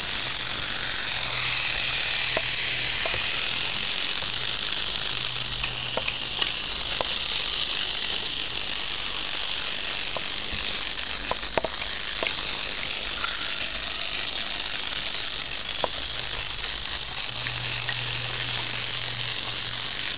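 Brio toy locomotive's small motor and gears whirring steadily as it runs on wooden track, with scattered light clicks and a low hum that comes and goes.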